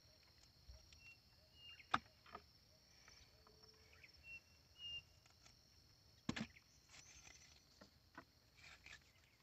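Quiet hauling of a fishing net into a wooden canoe: two sharp knocks, about two seconds in and about six seconds in, and a few fainter clicks. Under these are a faint steady high hum and a few short high chirps.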